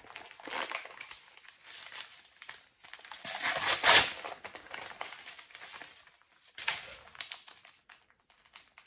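Packaging being handled and unwrapped: irregular crinkling and rustling, loudest about three to four seconds in, with another burst near seven seconds, then dying away.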